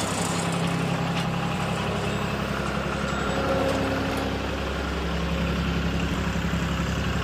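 40-horsepower Kohler diesel engine of a Vermeer CTX100 mini skid steer running at a steady speed.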